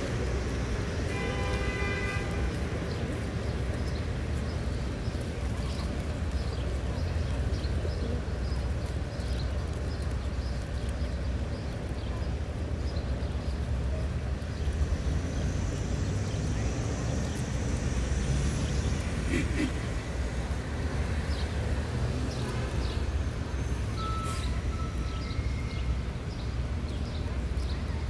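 Steady city street traffic rumble, with a short horn toot about a second in and a faint high whine rising and falling near the middle.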